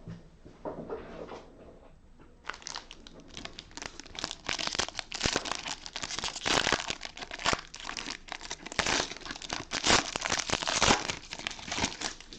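Foil trading-card pack wrapper being torn open and crumpled, a dense crinkling that starts about two and a half seconds in and goes on to the end.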